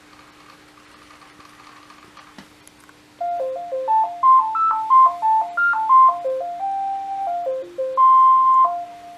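Sony Aibo ERS-311 robot dog's speaker playing a short electronic melody of beeping notes that step up and down in pitch, starting about three seconds in and ending on a long held note. A steady low hum runs underneath.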